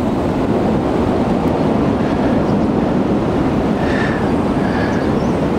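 Strong, gusty wind blowing through bare trees and buffeting the camera microphone: a loud, steady low rumble.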